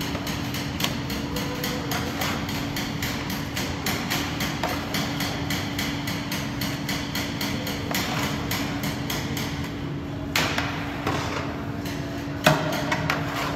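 Rapid, even knocking, several strikes a second, over a steady hum. A louder metal clank comes near the end, which fits the steel scoop striking the rim of the large steel karahi.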